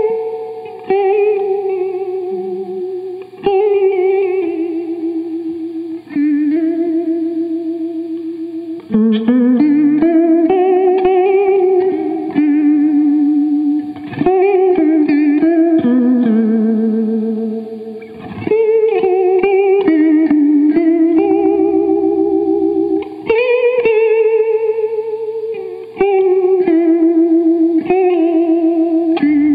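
Electric guitar (Danocaster single-cut) played through a Dr. Scientist Cosmichorus chorus pedal into a Divided by 13 EDT 13/29 KT66 tube amp. Chords and notes are struck every two or three seconds and let ring and fade, with a steady wavering shimmer in their pitch from the chorus.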